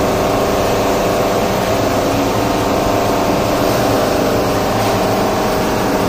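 A large engine running at a steady speed, a constant drone that does not change.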